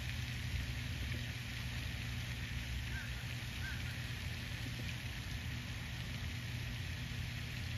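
Steady outdoor background noise with a low rumble and a constant hiss, and two faint short chirps about three seconds in.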